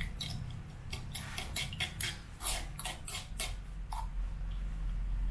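Metal spoon stirring a thin dipping sauce in a stone mortar, clinking and scraping against the stone in irregular strokes as the sugar is dissolved. A steady low hum runs underneath.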